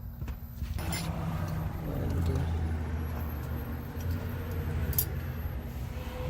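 A vehicle engine rumbling low and steadily, swelling about a second in, with a sharp click about five seconds in.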